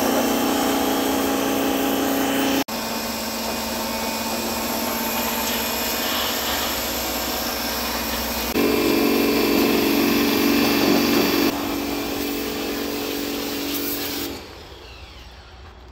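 Pressure washer running, a steady motor hum under the hiss of the water jet spraying on metal. The sound cuts and jumps in level a few times and drops to a much quieter level near the end.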